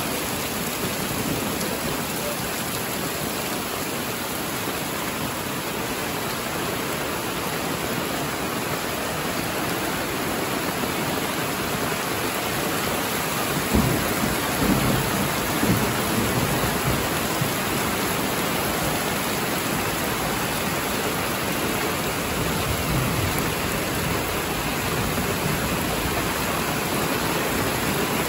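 Heavy rain falling steadily. About halfway through, a low rumble starts sharply and lasts a couple of seconds, with a fainter one later.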